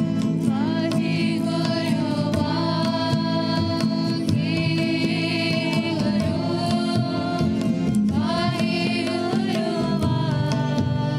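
Sikh devotional simran music: a voice sings long, drawn-out notes with gliding pitch over a steady low drone, accompanied by regular hand-drum strokes.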